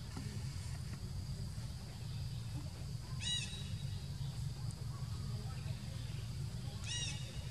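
Two brief animal calls about four seconds apart, each a short squeal that rises and falls in pitch, over a steady low rumble and a faint, steady high whine.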